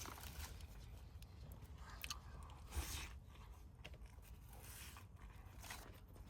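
A person biting and chewing food, faint and irregular, with a slightly louder bite about three seconds in.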